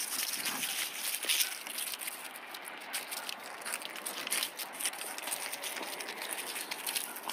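Footsteps of a chihuahua and the person walking it on dry fallen leaves: irregular crunching and rustling crackles.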